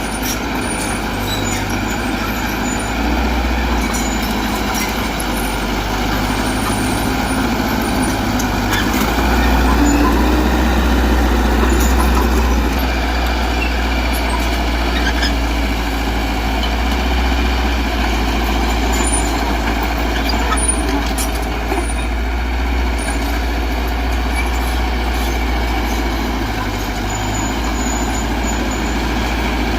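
Heavy diesel engine of earthmoving machinery running steadily under load, a little louder about ten seconds in.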